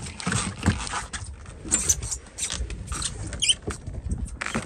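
Irregular clicks and taps of rod and reel handling at the boat's rail, with wind buffeting the microphone and a brief high squeak about three and a half seconds in.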